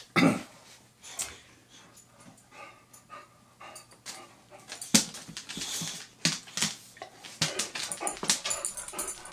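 A pet dog panting and making short whining noises, with scattered sharp clicks and knocks; the loudest is a thump just after the start.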